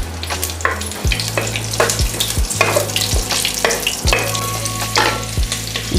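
Whole spices (dried red chillies, cloves, cardamom, cinnamon) sizzling in hot mustard oil in a steel pot, with a metal spoon stirring and clicking against the pot again and again.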